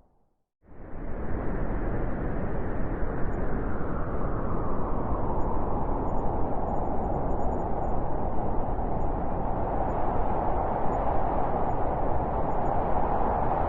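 Blizzard wind as a steady rushing noise. It dies away to silence at the very start, swells back in within about a second, and keeps going.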